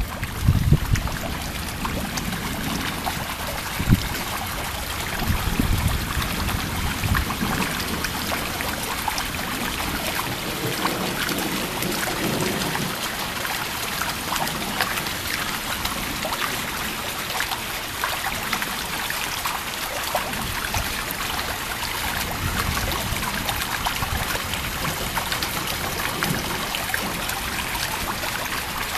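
Heavy thunderstorm rain falling steadily, with dense pattering and running, trickling water. A few low rumbles come in the first several seconds, and a single sharp knock about four seconds in.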